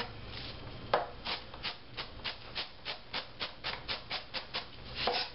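Chef's knife chopping through onion onto a plastic cutting board: a single knock about a second in, then a quick even run of strokes, about five a second, as the onion is cross-cut into dice.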